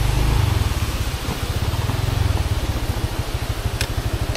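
Honda Click scooter's single-cylinder engine idling with a steady low pulse, a little louder in the first half second before it settles.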